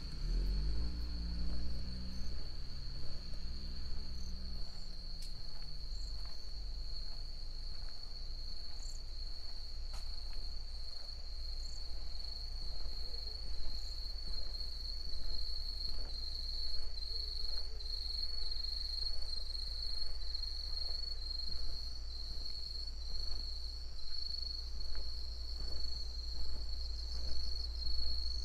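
Night insects trilling in a steady, unbroken high-pitched chorus. A low hum fades out over the first few seconds.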